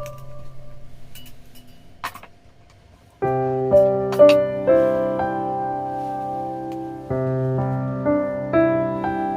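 Background music: a guitar piece's last chord dies away, then after a short pause a gentle piano piece starts about three seconds in with sustained chords.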